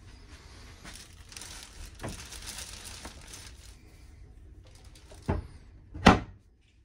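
Rustling, crinkling handling noise, then two knocks as the two hinged doors of a wooden overhead cupboard are pushed shut one after the other, the second knock the louder.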